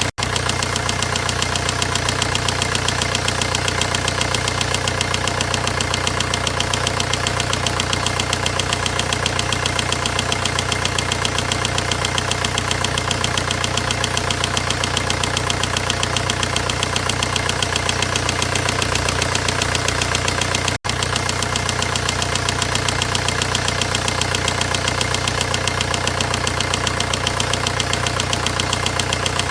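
VW 1.9 diesel engine running at a steady idle with a fast, even rhythmic clatter, the noise presented as a fault in the engine. The sound cuts out for an instant twice, near the start and about two-thirds of the way through.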